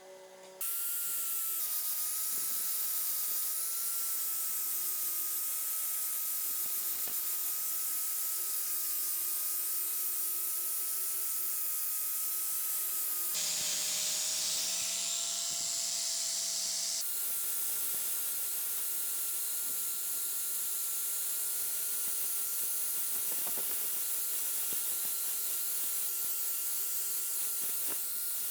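Small electric power tool running steadily on the rusty steel of a cleaver, a steady whine under a loud hiss of abrasive working the metal. About halfway through, the whine drops in pitch and the hiss brightens for a few seconds, then it settles back.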